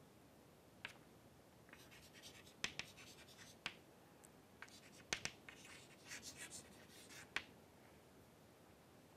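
Chalk writing on a chalkboard: short scratchy strokes with several sharp taps as the chalk strikes the board, stopping a little after seven seconds in.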